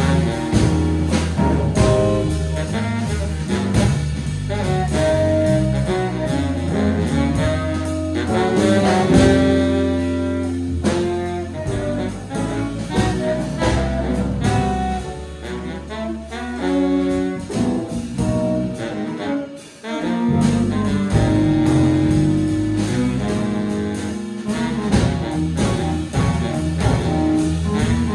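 Small jazz band playing live: a baritone saxophone over piano, electric guitar, electric bass and drum kit. The music drops out for a split second about two-thirds of the way through, then carries on.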